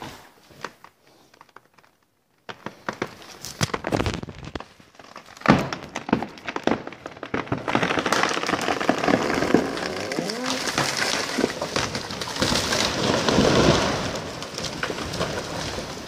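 Big fir tree coming down: a run of sharp cracks and snaps of breaking wood, then from about halfway a long rushing crash of limbs and trunk through the timber, loudest near the end and dying away.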